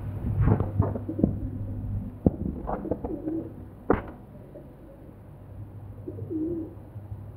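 Rock pigeons cooing: two short, low, rolling coos, about three seconds and six seconds in. Several sharp knocks or clicks come in the first four seconds, over a steady low hum.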